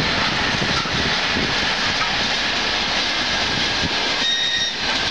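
ChS7 electric locomotive and its passenger coaches passing close by at speed, a steady loud roar of wheels and running gear on the rails, with a brief high-pitched squeal about four seconds in.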